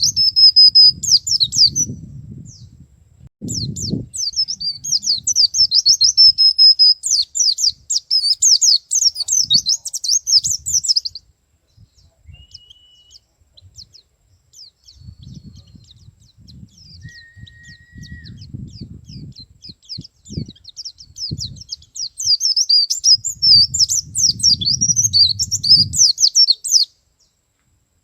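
Male white-eye (pleci) singing a fast, high-pitched twittering song in long unbroken runs: one of about eleven seconds, then a lull of scattered chirps and a couple of short plain whistles, then a second run of a few seconds near the end. A low rumble comes and goes underneath.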